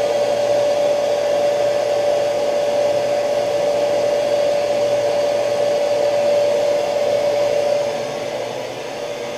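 Commercial reverse osmosis system's high-pressure pump and electric motor running steadily with a constant whine over a rushing hum, the system pressurised to about 150 psi. It grows a little quieter about eight seconds in.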